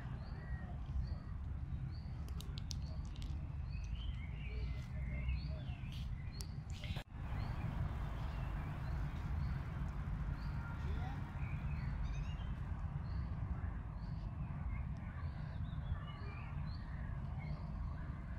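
Many small birds chirping in the park's trees, short repeated calls throughout, over a steady low rumble. The sound briefly drops out about seven seconds in.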